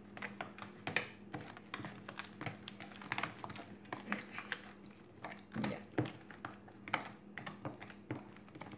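White plastic spoon stirring thick ground-corn batter in a clear plastic tub: irregular soft clicks, knocks and scrapes of the spoon against the tub and through the wet batter, several a second, over a faint steady hum.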